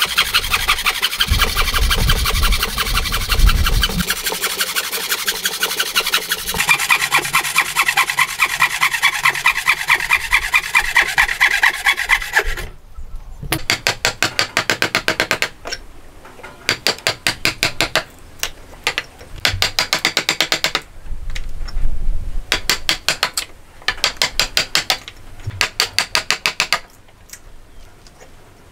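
A fine-toothed hand saw cuts hardwood in rapid, steady strokes for about the first twelve seconds and then stops abruptly. After that comes a chisel paring and scraping wood out of the joint in short bursts of quick strokes with pauses between them.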